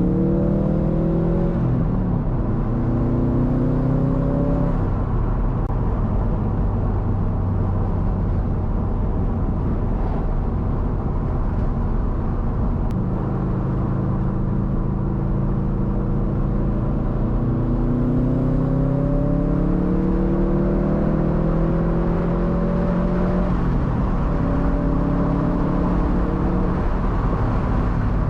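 2013 Subaru WRX STI's turbocharged 2.5-litre flat-four running through a Tomei Expreme Ti titanium exhaust, pulling through the gears: the engine note climbs in pitch, drops back at each upshift, and holds steadier for a stretch in the middle.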